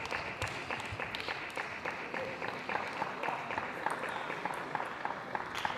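Spectators applauding, with many separate claps standing out over a steady hiss.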